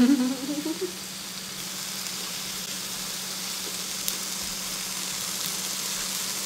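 Marinated beef, bulgogi and galbi short ribs, sizzling steadily on an electric tabletop grill, with a light click about four seconds in.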